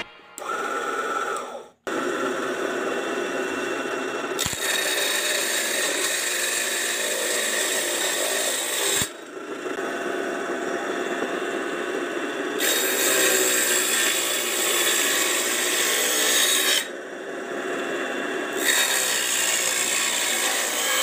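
Homemade mini wood-cutting saw running and cutting wood: a steady motor whine mixed with the rasp of the blade in the wood, changing in level and tone several times.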